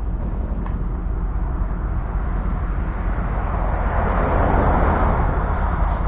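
A steady low outdoor rumble, with a rush of noise that swells and fades about four to five seconds in.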